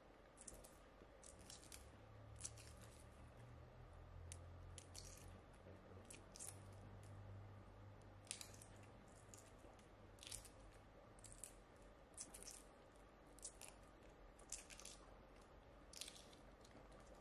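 Faint, irregular crisp crunches and clicks of food being worked by hand, roughly one or two a second, such as a knife cutting through food or shell cracking.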